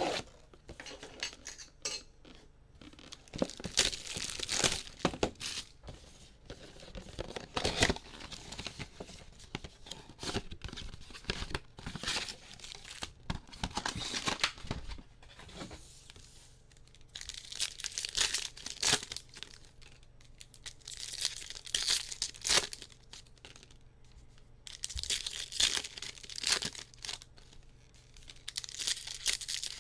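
Wrapping on a box of trading cards being torn open and crinkled by hand, in repeated bursts of tearing and crackling a second or two long with short pauses between.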